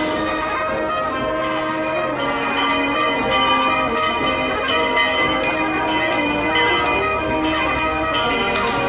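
Church bells rung in quick, repeated strokes with long ringing overtones, starting about two seconds in; music is heard underneath at the start.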